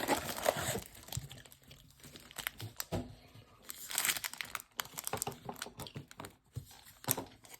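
Plastic wrapping on a trading-card blaster box crinkling and tearing as the box is opened, with scattered sharp clicks of cardboard and packaging being handled.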